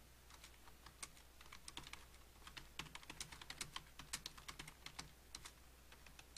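Typing on a computer keyboard: a quick, uneven run of faint keystroke clicks with short pauses between bursts of words.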